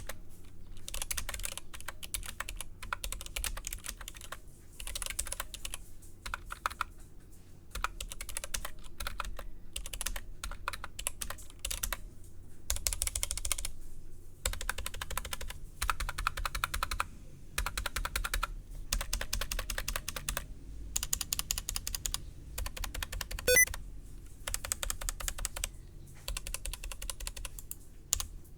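Anne Pro 2 60% mechanical keyboard being typed on in fast runs of keystrokes, with short pauses between bursts. One sharper, louder clack comes about two thirds of the way through.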